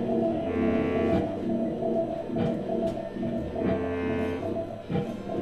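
Violin and guitar playing live together, the violin drawing out long held notes about a second in and again near four seconds over the guitar.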